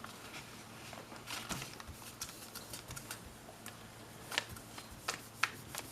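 Scattered light clicks, taps and rustles of hands handling a tablet and its covering of self-adhesive plastic film, with a few sharper clicks about one and a half seconds in and in the last second and a half.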